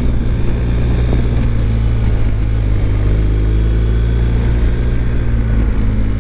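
BMW GS boxer-twin engine running steadily in second gear at low road speed, heard from the rider's seat.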